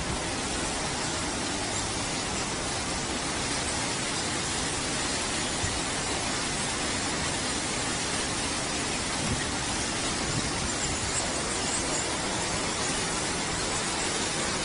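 Automatic car washing machine with five brushes running, giving a steady rushing hiss of the kind made by water spray and spinning brushes.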